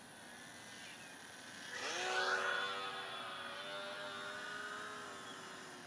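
Small electric motor and propeller of a HobbyZone Champ RC plane whining as the plane flies by. About two seconds in, the pitch rises quickly and peaks with a short whoosh. The whine then holds nearly steady and fades slowly, sinking a little in pitch.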